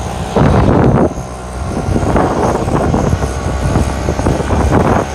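Ride noise from a moving vehicle: a steady low engine drone under rushing wind that buffets the microphone, with the loudest gust about half a second in.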